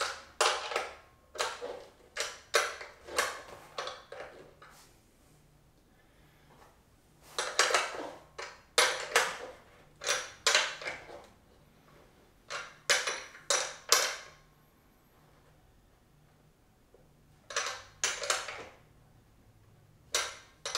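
A metal wrench clicking and clinking against the bolts as they are tightened down on a weight bench's backrest. The clicks come in runs of several, about two a second, with pauses between the runs.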